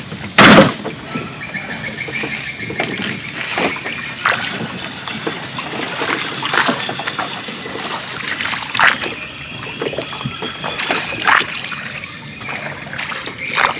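Water splashing and sloshing as a fish trap tied to a wooden stake is hauled out of the water beside a small boat. A loud knock or splash comes about half a second in, followed by scattered smaller knocks and splashes.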